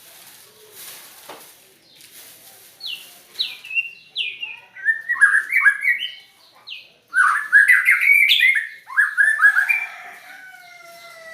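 White-rumped shama (murai batu) singing: after a quiet start, it gives rapid phrases of short, falling, whistled notes, loudest in the middle. Near the end the song runs into a few long falling whistles.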